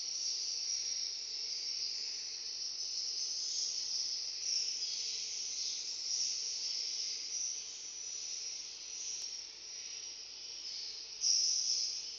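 Many swiftlets twittering together, a dense, continuous high-pitched chirping that swells louder about eleven seconds in.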